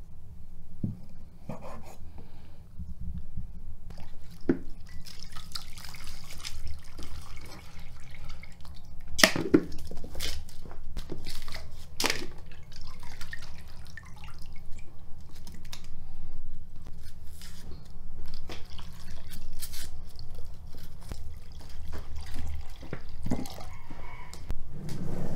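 Food prep by hand: meat sloshed and washed in a bowl of water, with dripping and splashing, several sharp knocks of a knife and utensils on a wooden board, and water poured from a clay jug near the end. A steady low hum runs underneath.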